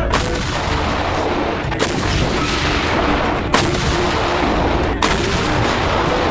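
Self-propelled howitzers firing: four heavy gun blasts about a second and a half apart, each rolling into a long rumble.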